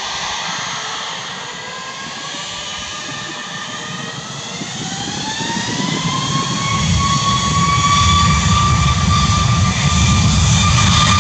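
Boeing 737 MAX 8's CFM LEAP-1B jet engines spooling up to takeoff thrust. A whine climbs in pitch for a few seconds from about four seconds in, then holds steady as a deep rumble builds and the sound grows much louder.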